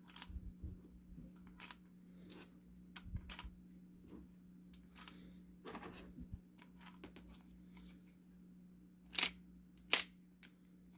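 Scattered small clicks and handling rustles over a steady low hum, with two sharp, louder clicks about nine and ten seconds in.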